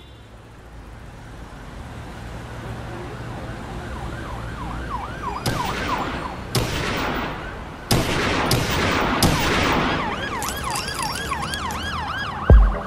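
Intro of a psychedelic trance track: a rising noise build with a siren-like warbling synth, punctuated by several sweeping hits, and a heavy kick drum coming in near the end.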